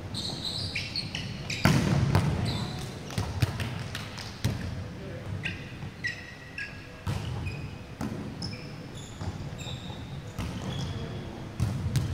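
Volleyball rally: the ball struck by hands and forearms in a string of sharp slaps and thuds, with sneakers squeaking on the court floor.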